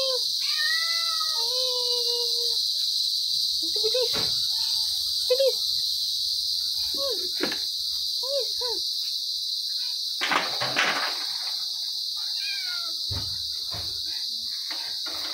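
Hungry domestic cats meowing: a long drawn-out meow at the start, then a string of short rising-and-falling meows. A steady high chirring of crickets runs underneath, and a few sharp knocks come about ten seconds in.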